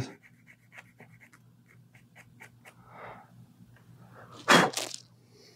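Needle file scraping in short, faint strokes against a tiny model part, then a short, loud blow of breath about four and a half seconds in.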